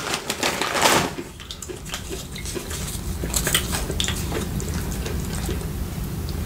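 Scraping and clicking against a food container as chili is scooped up, with a louder scrape about a second in and scattered lighter clicks a few seconds later.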